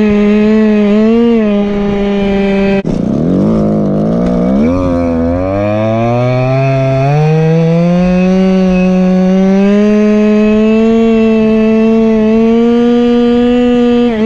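Go-Ped scooter's small two-stroke engine running at high revs. About three seconds in it drops sharply, with a click, as the throttle is let off. It then climbs back steadily over a few seconds and is held high again.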